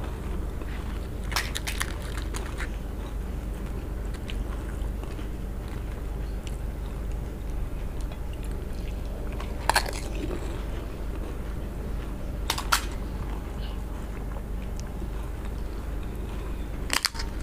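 Crisp fried fuchka (panipuri) shells being cracked open and crunched while eaten, with chewing between. A few sharp cracks stand out over a steady low hum.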